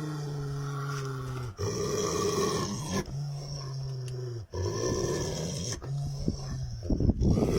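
A man snoring while dozing, in a regular cycle: a steady, droning, pitched snore for about a second and a half, then a rougher, breathier stretch, repeating about every three seconds. Near the end comes a louder, rattling breath.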